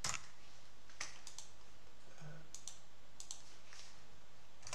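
A handful of sharp, separate computer clicks from a mouse and keyboard, about six spread unevenly over a few seconds.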